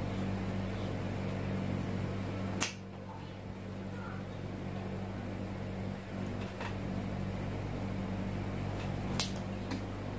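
Steady electrical mains hum, with a sharp click about two and a half seconds in and two more close together near the end, as soldering tools work on a TV's circuit board.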